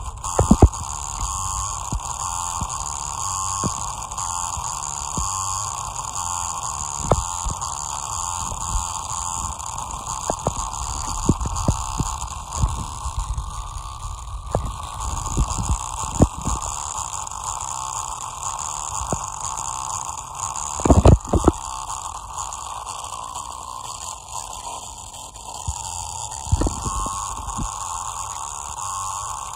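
A broken loudspeaker driver, its dust cap dented and surround torn, is driven hard with a bass-heavy track. It gives a deep throbbing bass under a steady buzzing hum, with irregular sharp clicks and a loud burst of them about 21 seconds in.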